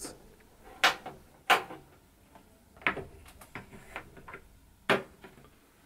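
Several sharp metallic clicks and knocks from handling a steel electrical cabinet: its door being pressed shut and the quarter-turn latch turned. The clicks are spread out, with the loudest near the start and one near the end.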